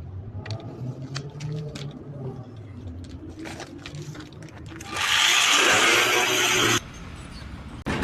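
A machine running with a steady low hum and scattered clicks. About five seconds in, a loud rushing hiss lasts nearly two seconds and cuts off suddenly.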